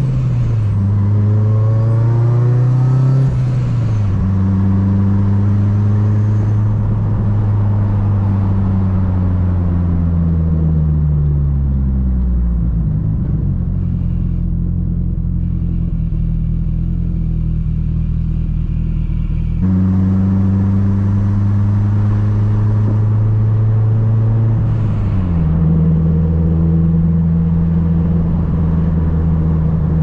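Built Mitsubishi Lancer Evolution VIII's turbocharged 2.0-litre four-cylinder heard from inside the cabin while driving. It revs up and changes gear about three seconds in, eases off and settles low from about ten seconds in, then comes back on sharply at about twenty seconds, with another gear change a few seconds later.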